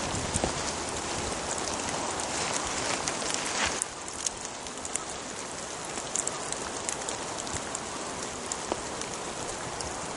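Steady rain falling on woodland, an even hiss with many separate drops ticking close by. It drops a little in level about four seconds in.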